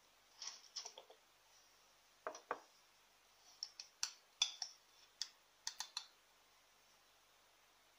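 Light clicks and clinks of kitchenware being handled, in short clusters, as a ceramic salt jar is picked up and tipped.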